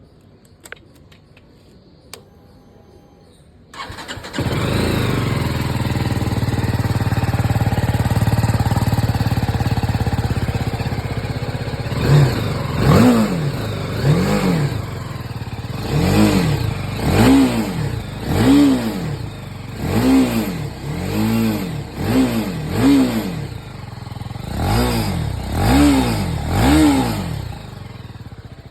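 BMW G310GS's 313 cc single-cylinder engine on its stock exhaust: after a couple of faint clicks it starts about four seconds in and runs steadily. From about twelve seconds on it is revved in about a dozen quick throttle blips, each rising and falling, then drops back to a steady idle near the end.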